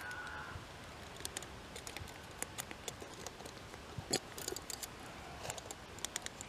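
Thin metal wire pot supports clicking and ticking against each other and against the metal stove can as they are fitted into it one by one: light, irregular clicks, the loudest about four seconds in.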